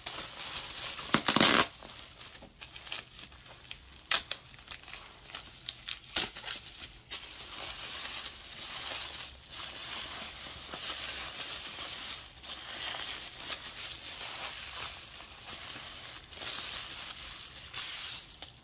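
Plastic bubble wrap crinkling and rustling as it is handled and unwrapped by hand, with a louder burst about a second in and sharp cracks around four and six seconds.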